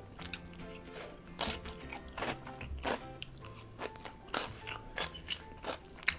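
Close-up crunching and chewing of seasoned garlic scapes, a run of irregular crisp crunches bite after bite.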